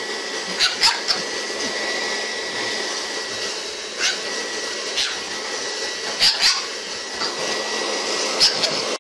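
A handheld electric appliance runs with a steady whirring rush and a thin high whine. A pug lunges and bites at it, making several short sharp sounds.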